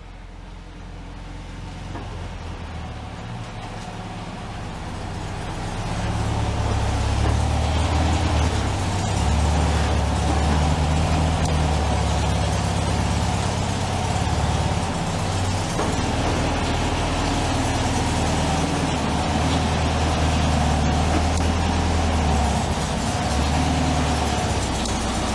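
1964 VW Beetle's air-cooled 1500cc flat-four engine running. It grows louder over the first six seconds as the car pulls into the garage, then runs steadily close by. It is running smoothly after a fresh start.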